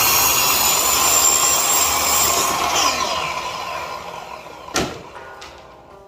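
A power tool running at high speed with a high whine, then winding down over about two seconds; a single sharp knock follows near the end.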